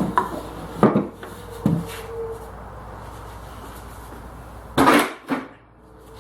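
Wooden knocks and clunks from a pine-box model of a retracting-caster base as it is worked. Three sharp knocks come in the first two seconds, and a louder double clunk comes about five seconds in.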